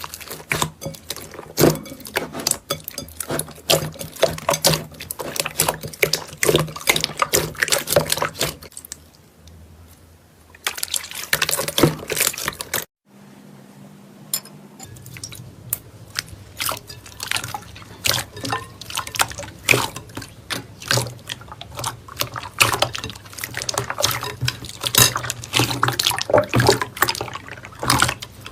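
Slime being squeezed and worked by hand: dense, irregular wet clicking and popping, with a brief break about thirteen seconds in.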